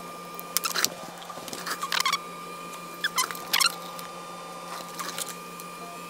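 Several short bursts of plastic clicks and scrapes as an iPhone board is fitted into a test jig and the test screen's flex cables are pressed onto their connectors. A steady electrical hum with a faint high whine runs beneath.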